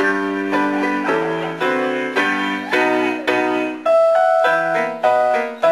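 Keyboard music: chords struck about twice a second, each dying away before the next.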